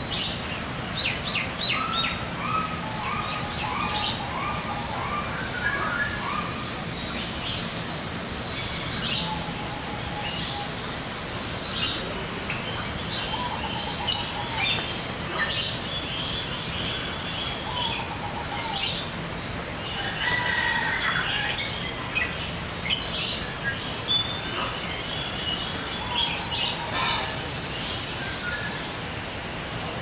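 Several birds chirping and calling over steady background noise, with a quick run of about six repeated notes near the start.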